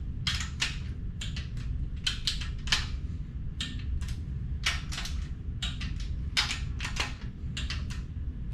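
A click-type torque wrench working the cylinder head bolts of a Subaru EJ25 boxer engine to 31 ft-lb: a string of sharp, irregularly spaced metallic clicks, some in quick pairs, as the wrench is ratcheted and clicks over at its set torque.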